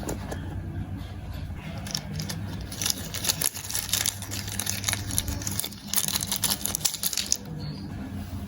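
Kinetic sand being worked, giving a crisp grainy crackle made of many fine clicks that comes in patches from about three to seven seconds in, over a low steady hum.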